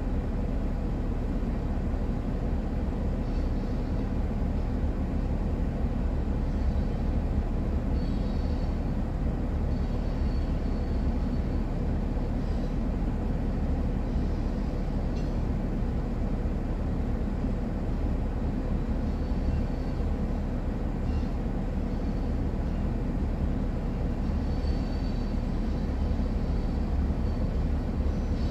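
Freight train's gondola cars rolling past, a steady rumble of wheels on rail, with brief high squeals several times.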